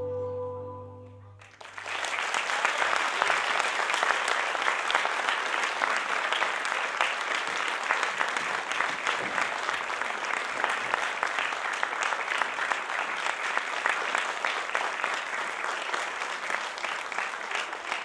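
Audience applause: dense, steady clapping of many hands, starting about two seconds in as a held chord of the dance music fades out.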